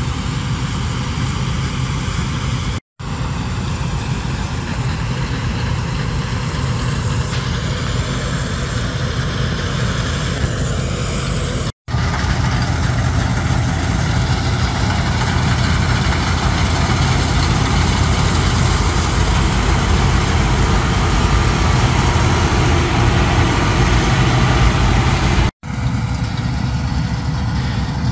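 Bizon Rekord combine harvester running in the field, a steady, dense drone of diesel engine and threshing gear. The sound breaks off into brief silences three times, about 3 s, 12 s and near the end, where the shots change.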